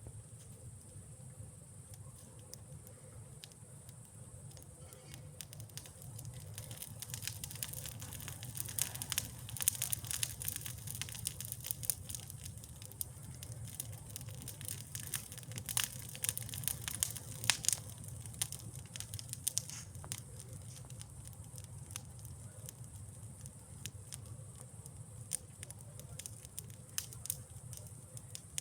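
Wood campfire burning, crackling with irregular pops and snaps that come thickest and loudest in the middle stretch.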